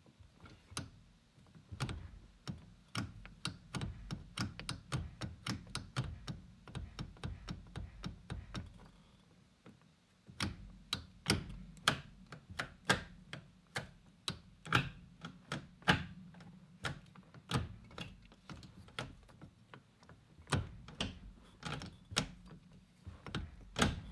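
A run of sharp metallic clicks and knocks from hand work on the car's shifter mounting, quick and regular for several seconds, then slower and louder strikes about a second apart after a short pause.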